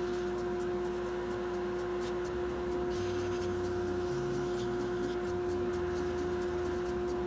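Woodturning lathe and shop dust collector running steadily: a constant hum on one pitch with overtones, over a hiss of moving air.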